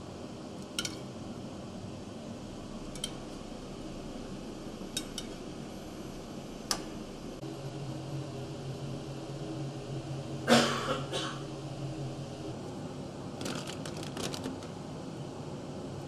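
Kitchen utensils clinking at a pizza prep counter: a spoon and glass sauce jar tapping against perforated metal pizza pans in scattered sharp clicks, with a louder clatter about ten seconds in and a quick run of clicks a few seconds later. A low machine hum comes in about halfway through and stops a few seconds later.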